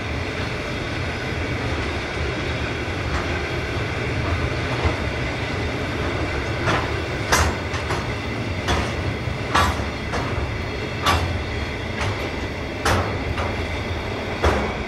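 Narrow-gauge freight wagons rolling past with a steady rumble of wheels on rail. From about six seconds in, sharp clanks and clicks come about once a second at irregular spacing.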